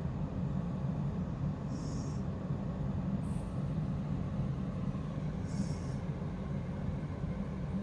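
A woman snoring in her sleep: a short, high-pitched, squeaky sound comes twice, about four seconds apart at breathing pace, over a steady low rumble.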